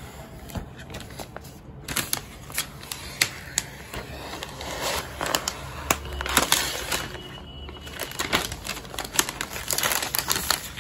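Thin protective plastic film crackling and crinkling as it is peeled off the aluminium back and stand of a new iMac, a rapid irregular run of sharp crackles.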